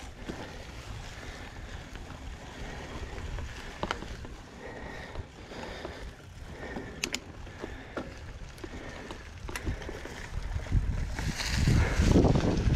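Mountain bike ridden along a dirt trail: steady tyre noise with a few sharp rattles and clicks from the bike. Wind buffeting the microphone grows louder near the end.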